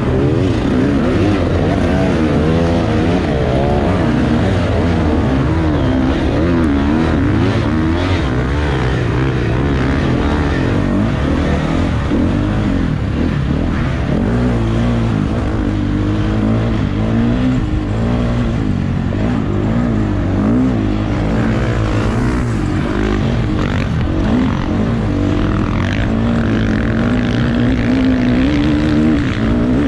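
Off-road dirt bike engine revving up and down without let-up under racing throttle, its pitch rising and falling every second or so.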